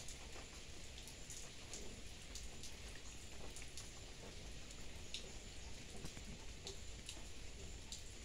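Steady rain falling, an even hiss with scattered individual drops striking close by every second or so.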